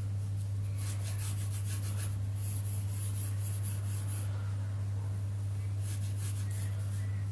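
Pencil scratching on paper in a few separate strokes as the straight lines of a rhombus are drawn, over a steady low electrical hum.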